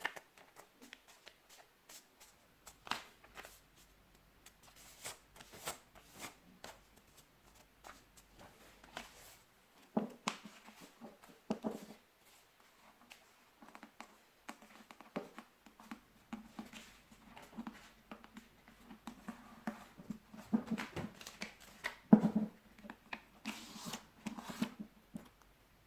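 A sheet of paper being handled, folded and creased by hand: scattered rustles and crisp little crackles, louder and busier in the last few seconds.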